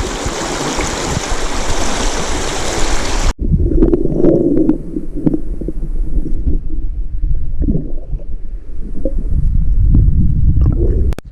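Rushing stream water, a loud even rush that cuts off abruptly about three seconds in. It gives way to a low rumble with scattered short knocks and handling noise.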